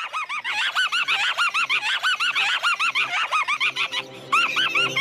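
A pitch-shifted rabbit sound effect chopped into a rapid stutter: short arched honking squeaks about five a second, breaking off briefly near the end before starting again.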